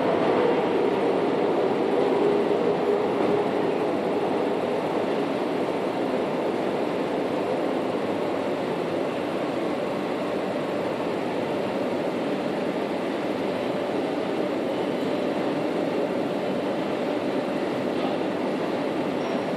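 MTR M-Train electric multiple unit running out of an underground station platform. Its rumble and a hum sink slightly in pitch and fade over the first few seconds, leaving a steady background rumble.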